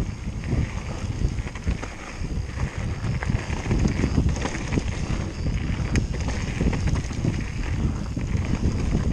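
Mountain bike descending fast on a gravel trail: tyres rolling over the gravel, with frequent knocks and rattles from the bike over the bumps, under wind noise on the microphone.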